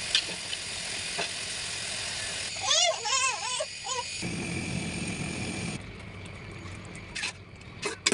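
Pui shak and masoor dal sizzling in a frying pan, with light clicks of a spoon stirring, for the first two and a half seconds. Then about a second of a voice, followed by a quieter stretch with a few sharp clicks.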